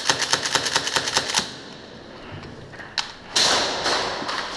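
Airsoft gun firing a fast string of shots, about eight sharp cracks a second, that stops about a second and a half in. After a quiet gap comes a single click, then a steady rush of noise near the end.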